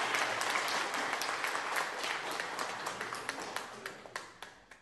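Crowd applauding, dense clapping that thins out and fades away near the end.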